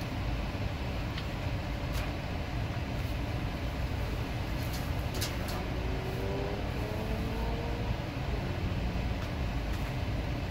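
Steady low rumble heard from inside a parked car's cabin, with a few faint clicks from rummaging in a dumpster about two seconds in and again around the middle.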